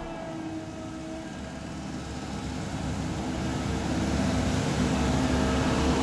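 Tandem steel-drum asphalt roller's diesel engine running steadily as the roller comes closer, growing gradually louder.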